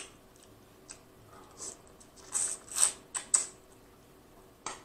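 Close-miked wet eating sounds of saucy seafood being handled and eaten with bare hands: a handful of short smacks and squishes, most of them between one and three and a half seconds in and one near the end.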